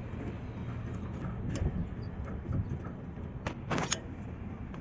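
A hand tube expander clamped on a copper pipe is being worked, giving a few light metallic clicks and a short metal clatter about three and a half seconds in. A steady low rumble runs underneath.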